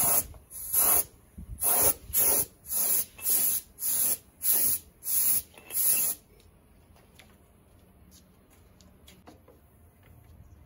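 Gravity-feed spray gun on a compressor hose spraying basecoat paint in short hissing bursts, about ten quick squirts roughly two a second, stopping about six seconds in.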